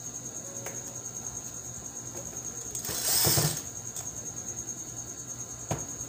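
A cordless hand drill spins up briefly, one short burst just under a second long about three seconds in. A sharp click follows near the end.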